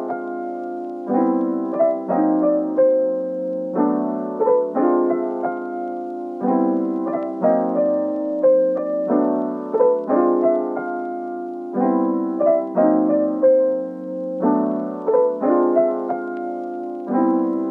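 Background piano music: chords struck about once a second, with a melody line above them.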